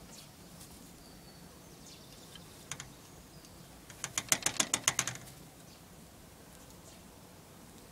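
A rapid run of about ten sharp clicks lasting about a second, about four seconds in, from a rabbit drinking at the spout of a hutch water bottle clipped to the wire mesh.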